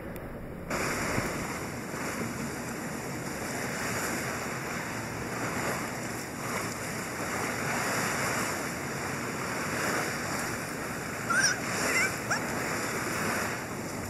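Shallow sea water lapping and sloshing close to the microphone in a steady wash of small waves. It is muffled for under a second at the start, then opens up. A few brief high-pitched calls come near the end.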